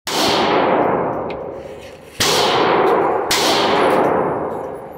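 Three shots from a GSG 1911 .22 LR pistol, the second about two seconds after the first and the third about a second later, each followed by a long echoing fade.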